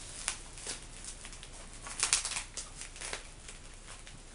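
Parcel packaging crinkling and tearing in short, irregular crackles as it is worked open, with the sharpest rip about two seconds in.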